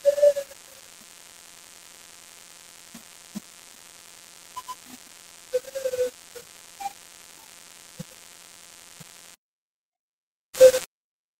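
Steady hum and hiss of a recording's background, with a few short, scattered blips; it cuts out to dead silence about nine seconds in, and one short, loud burst follows near the end.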